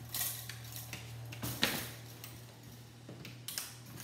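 Wire cutters snipping thin wires inside a steel toaster frame: a few sharp snips and metal clinks and scrapes, the loudest snap about a second and a half in.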